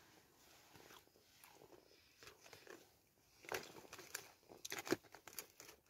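Chocolate biscuit being crunched and chewed close up. After a quiet start there is a scatter of short sharp crunches in the second half, the loudest about five seconds in.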